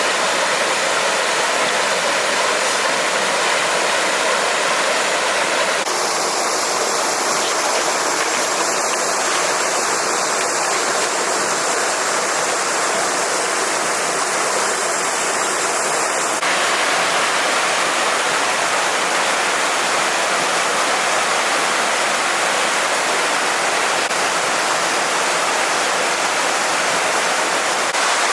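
Stream water rushing steadily. The sound changes abruptly twice, about six seconds in and again around sixteen seconds.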